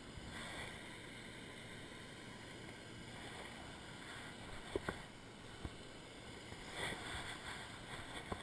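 Steady rush of a waterfall pouring into a pool, with a few sharp clicks a little under halfway through.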